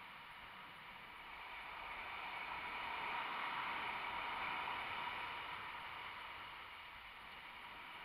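Ocean surf breaking and washing up the beach: a hiss of waves and foam that swells over a few seconds and then fades.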